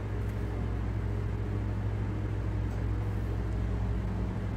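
Steady low background hum with no distinct events.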